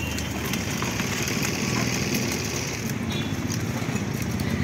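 A vehicle engine running steadily, with road noise, heard from on board the moving vehicle.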